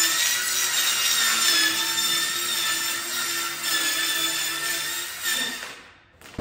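Handheld electric saw cutting through a large panel: a steady, loud motor whine over the hiss of the blade in the board. It fades and stops about six seconds in as the saw is switched off.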